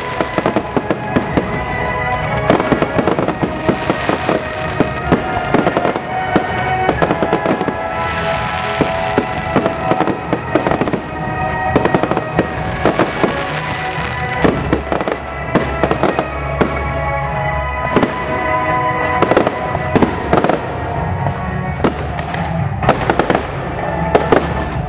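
Fireworks display: many shells bursting in quick, irregular bangs and crackles, over music with sustained tones.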